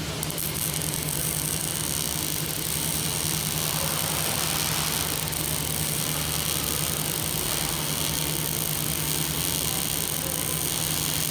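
A welding fume extraction vacuum running with a steady hum and hiss.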